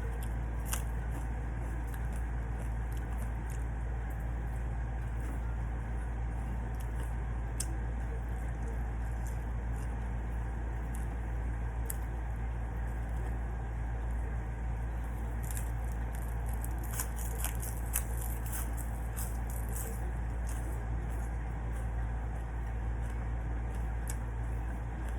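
Small clicks and crackles of eating, chewing and utensils on dishes, scattered through and thickest about fifteen to twenty seconds in, over a steady low hum.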